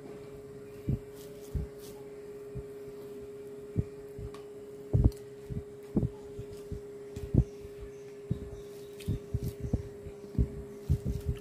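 Soft, irregular low thumps of a hand mashing and mixing rice with fried greens on a steel plate, coming more often near the end, over a steady hum.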